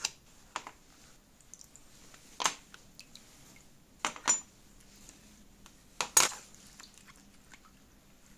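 Small pressed-steel toy parts clinking as they are set down on the work surface and knocked together, several separate sharp clinks a second or two apart, the loudest about six seconds in.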